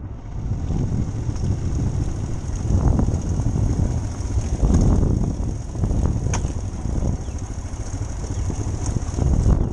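A Royal Enfield Himalayan's single-cylinder engine running at low speed on a rocky dirt trail, with a few sharp knocks as the bike jolts over stones.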